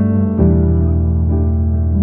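Background music: sustained, soft keyboard chords over a steady low bass, the chord changing about half a second in.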